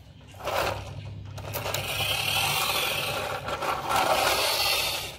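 Plastic toy crane truck pushed along a tiled floor, its wheels and gearing giving a steady whirring rattle that wavers as it is moved.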